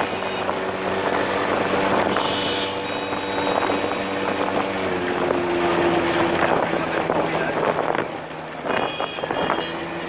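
Engine of a small open-top GoCar running steadily as it drives through city streets, with a constant drone over road and wind noise; the engine note changes about halfway through.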